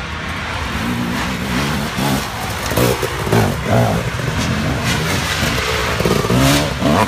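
Off-road dirt bike engines revving hard as two riders pass close by, the pitch rising and falling with each throttle blip. The sound grows louder from about a second in.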